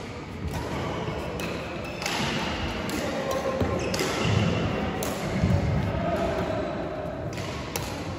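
Badminton rally in a sports hall: a string of sharp racket strikes on the shuttlecock and thuds of footwork, spaced irregularly, with the hall's echo.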